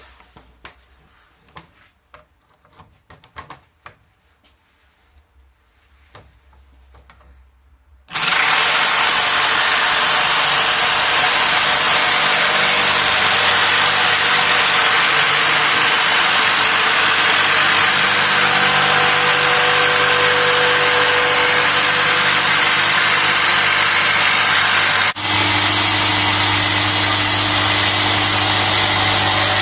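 A jigsaw starting up about eight seconds in and running steadily as it cuts through a thin wood panel, with a brief break near the end before it carries on. Before it starts, a few light handling clicks.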